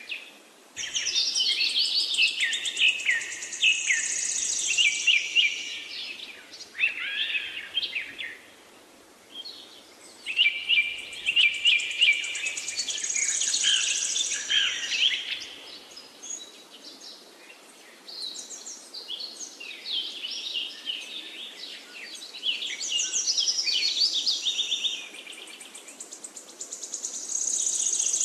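Birdsong: phrases several seconds long of quick chirps and trills, with short pauses between them.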